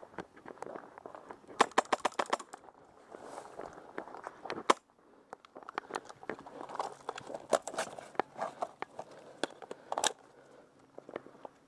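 Footsteps on gravel and gear rattling as an airsoft player moves. About two seconds in comes a fast, even string of sharp snaps, with further single snaps later.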